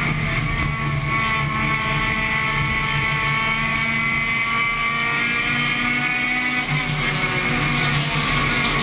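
Compact touring race car's engine heard from inside the car, running at a steady, nearly unchanging pitch at racing speed around an oval.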